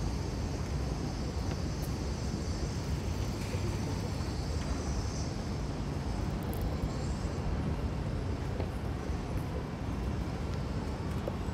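City street ambience: a steady low rumble with a few faint clicks and no voices standing out.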